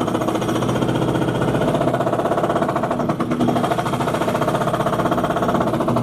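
Jackhammer from building work, heard inside a flat through its walls and floor: loud, rapid hammering without a break.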